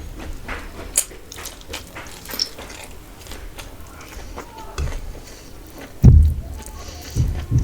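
Close-miked eating: wet chewing, mouth clicks and smacks from a mouthful of rice and fish curry. There are a few dull low thumps, the loudest about six seconds in.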